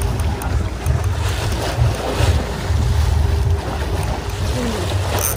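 Wind buffeting the microphone on a fishing boat at sea: a gusty low rumble over the wash of water.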